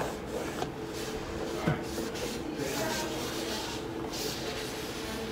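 A stick of charcoal rubbing across a canvas textured with modeling paste as thick lines are drawn.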